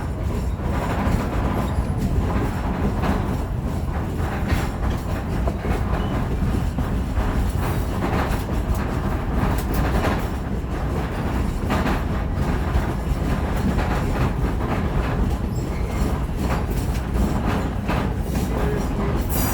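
Heritage railroad passenger train running along the track: a steady low rumble with frequent irregular clacks and knocks from the wheels on the rails.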